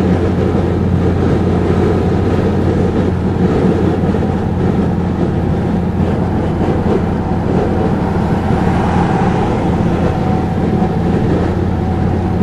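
Steady in-cabin drone of a Mercedes-Benz 300D's five-cylinder 2.5-litre diesel engine cruising at highway speed around 60 mph, running smoothly, mixed with constant tyre and wind noise.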